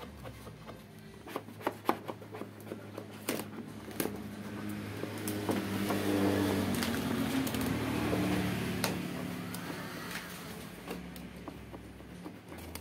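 Light clicks and crinkles of vinyl wrap film being handled and pressed onto a scooter's plastic body panel. A low motor hum rises about a third of the way in and fades away again.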